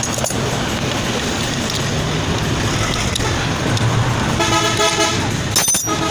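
Steady street traffic noise, with a vehicle horn honking for about a second some four and a half seconds in. A few sharp clicks follow near the end.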